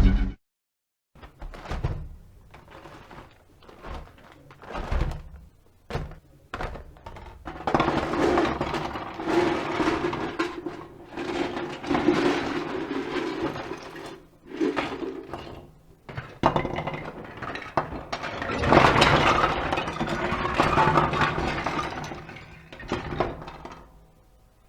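A series of irregular knocks, crashes and breaking sounds, with two longer stretches of dense clattering noise.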